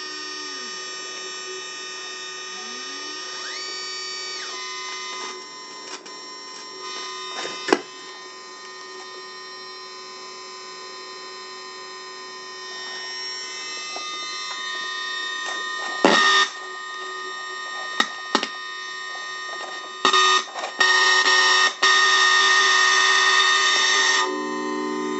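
Weird Sound Generator electronic noise synthesizer droning several held electronic tones at once. The pitch glides up and down in the first few seconds, sharp clicks cut in now and then, and a loud harsh buzzing takes over near the end.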